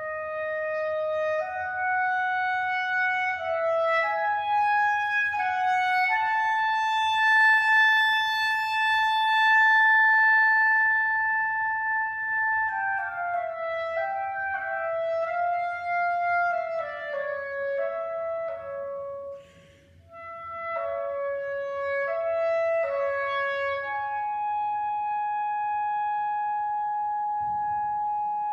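Solo clarinet playing a slow, unaccompanied melody. A few rising notes lead to a long held note, then a falling line follows, broken by a brief pause about two-thirds of the way through. It ends on another long held note.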